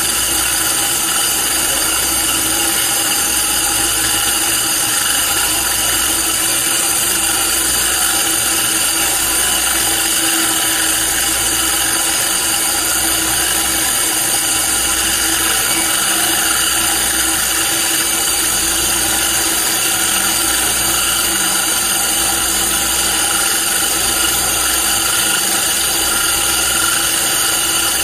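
Handheld electric core drill running steadily under load, its diamond core bit grinding dry into granite, with a compressed-air blow gun hissing at the cut to clear the dust.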